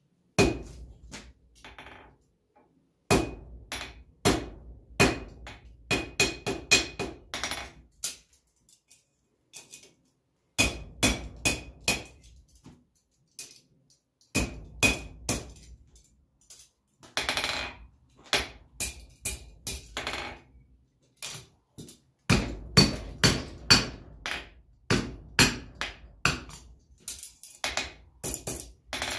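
Blacksmith's hand hammer striking hot steel on an anvil in bursts of quick blows, each blow with a short metallic ring from the anvil, with pauses of a second or two between bursts. The blows are shaping the ends of a small ring ahead of a forge weld.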